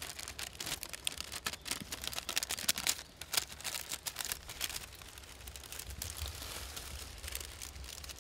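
Paper envelope crinkling and rustling as it is handled and folded, with many small crackles over the first half and softer rustling after.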